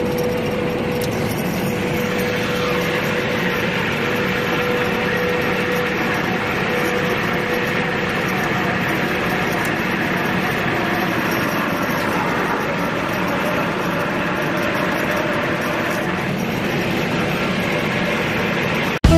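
Jet fuel rushing through the open refuel valves into the refuel manifold of a Boeing 737 NG during pressure refuelling as the tanks fill: a steady rushing noise, with a faint steady tone that fades out about halfway through. It cuts off abruptly at the very end.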